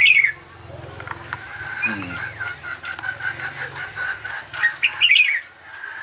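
Caged songbird chirping: a quick burst of short calls right at the start and another about five seconds in. A thin steady high tone runs between them, from about two to four and a half seconds in.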